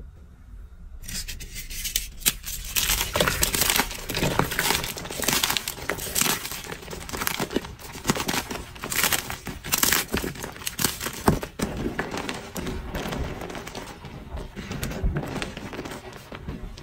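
Hands crushing blocks of dyed gym chalk in a bowl: dry crunching and crackling as the chalk breaks up and crumbles to powder, starting about a second in and going on in irregular crackles.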